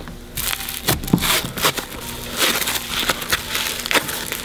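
Fluffy slime and heavily glittered slime being squished and kneaded together by hand, giving irregular crackling clicks.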